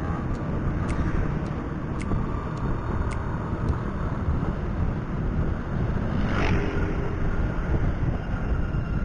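Motorcycle on the move, heard on board: steady engine and wind rumble. A light ticking about twice a second runs through the first few seconds, and a brief swell of noise comes about six and a half seconds in.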